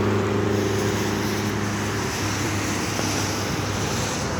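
A vehicle engine running with a steady low hum that fades out about two seconds in, over a constant hiss of rain and road traffic.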